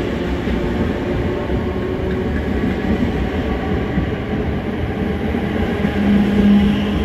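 Merseyrail Class 508 and Class 507 third-rail electric multiple units coupled together, pulling out and running past with steady wheel and motor noise. A low hum grows louder about six seconds in.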